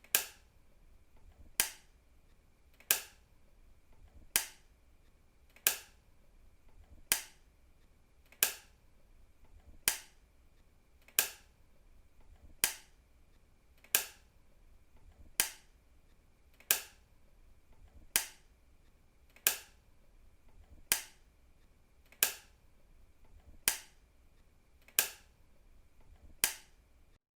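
A switch clicking, flipped over and over at an even pace of about one sharp click every second and a half, with a faint steady hum between the clicks.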